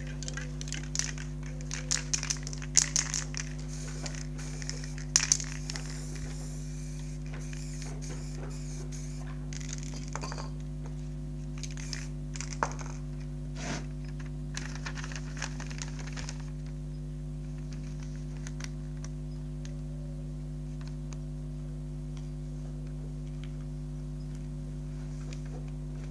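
Sheets of paper rustling and crinkling in irregular bursts as they are handled over a spray-painted board, mostly in the first two-thirds, over a steady low hum.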